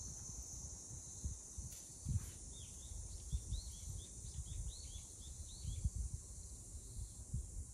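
A small bird twittering, a quick run of about a dozen short chirps lasting some three seconds, over an uneven low rumble and a steady high hiss of outdoor ambience.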